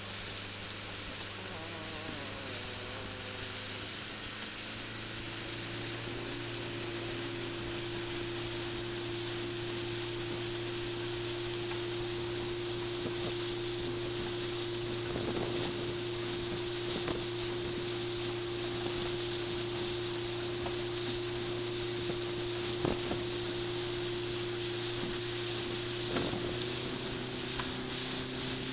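Small ferry boat's engine running steadily under way, its hum stepping up in pitch about four to five seconds in and shifting again near the end, over a steady hiss, with a few faint knocks.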